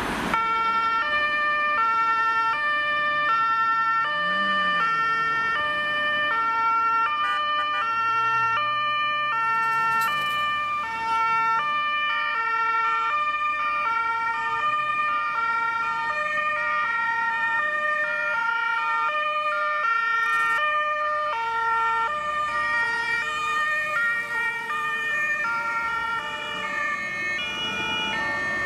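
Several German two-tone emergency sirens (Martinshorn) from a convoy of fire engines sound at once, out of step with each other, each alternating high and low tones, with truck engines passing underneath.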